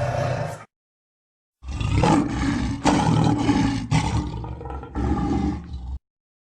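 Monster roar sound effects for a hulking reptilian creature. One roar cuts off just under a second in. After a second of dead silence, a longer, rough roar made of several spliced pieces plays and stops abruptly about a second before the end.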